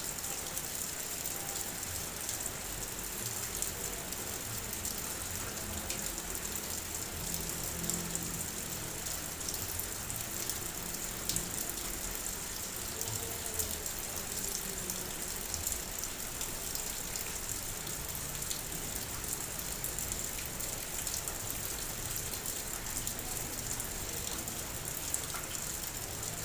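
Heavy rain falling on a car's body, heard from inside the car: a steady hiss of rain with many small drop taps on the surface.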